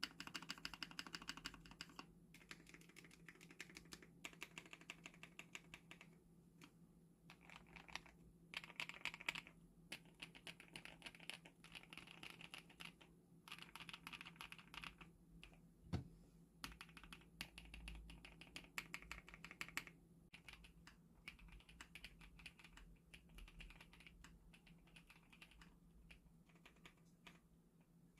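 Typing on a MonsGeek 75% full-aluminium mechanical keyboard with hand-lubed 灵动 V2 switches and 3 mm Poron foam added to the bottom of the case. Runs of rapid keystrokes come with short pauses between them, and one heavier key knock lands about halfway through.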